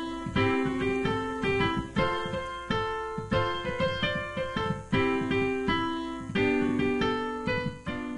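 Background music played on piano, a new chord struck about every half second to second, each ringing and fading.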